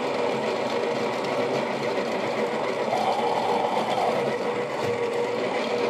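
Baratza Virtuoso conical steel burr grinder grinding coffee beans: a steady motor whir mixed with the grinding of the beans.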